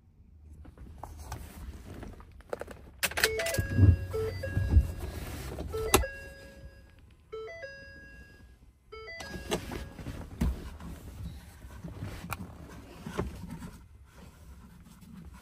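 Knocks and clunks of handling inside a pickup cab. A short electronic tune of held notes that step in pitch sounds for a few seconds starting about three seconds in, and briefly again just before the middle.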